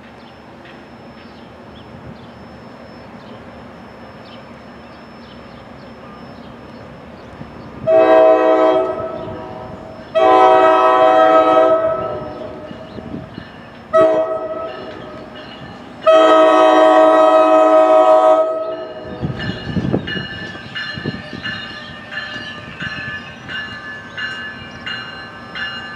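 Train air horn sounding the grade-crossing signal: long, long, short, long. A low rumble and a run of rail clicks from a train follow.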